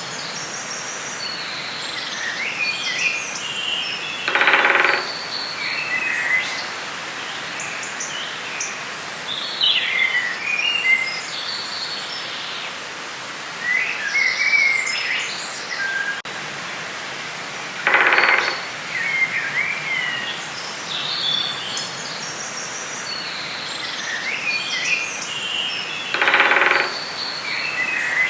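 Forest ambience: many songbirds chirping and trilling over a steady hiss. Three times a louder, lower call about a second long stands out.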